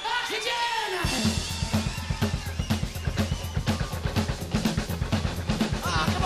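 A voice for the first second, then rock music with a driving drum kit and bass kicks in and carries on steadily.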